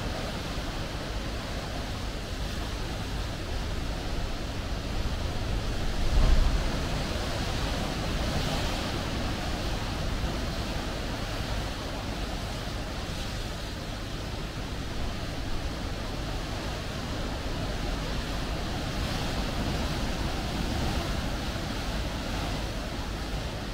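Sea waves washing in steadily with wind, swelling now and then, and a brief low rumble about six seconds in that is the loudest moment.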